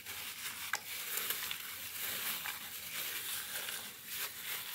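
Raw chicken pieces being squeezed and turned by hand in a wet peri peri marinade in a glass bowl: irregular squelching and slapping, with one sharp tap less than a second in.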